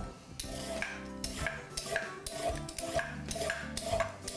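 Vegetable peeler scraping down a raw carrot in quick repeated strokes, about two to three a second.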